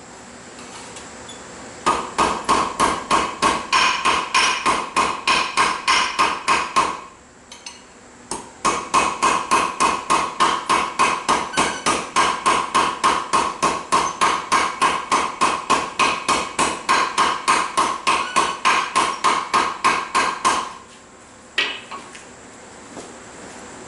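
Fast, even hammer blows forging steel on an anvil, about five a second, each with a metallic ring. They come in two long runs with a short pause between, then one last strike near the end.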